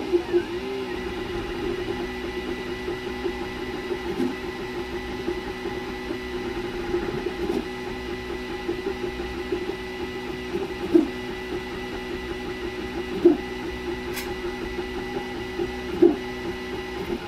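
Original Prusa 3D printer running a print: its stepper motors give off a steady whining hum as the print head moves. A few short, sharp clicks sound in the second half.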